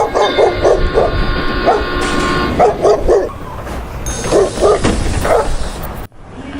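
A dog barking in quick runs of three or four barks, over a steady droning tone for the first few seconds; the sound cuts off abruptly about six seconds in.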